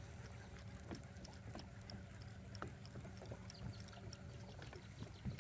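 Faint water lapping and trickling against a fishing boat's hull, with a low steady rumble and scattered small clicks.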